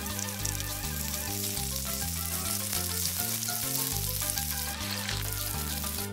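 Chicken quarters sizzling in hot oil and pan juices in a nonstick grill pan, a steady crackling hiss, under background music with a stepping bassline.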